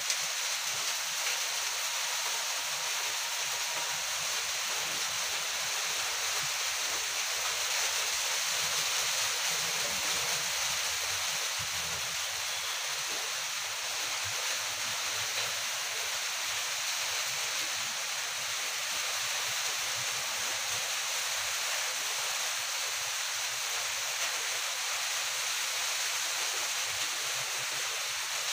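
A steady, even hiss, high-pitched and unchanging, with no distinct events.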